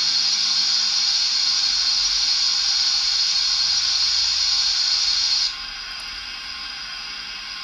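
Steam locomotive vacuum ejector sound from a Zimo digital sound decoder in a Hornby OO gauge Princess Coronation model, played through the model's speaker. A loud, steady hiss drops to a quieter steady hiss about five and a half seconds in.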